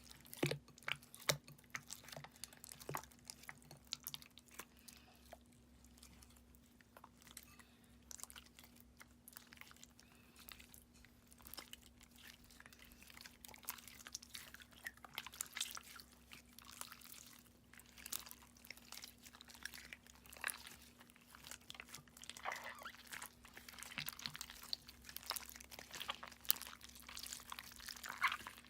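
Clear slime being kneaded and stretched by hand as glitter is mixed in: irregular soft crackles, clicks and squishy pops, getting busier toward the end.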